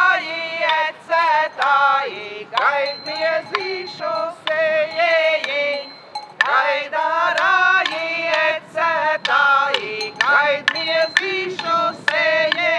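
Voices singing a Latvian folk song, a chant-like melody in short phrases.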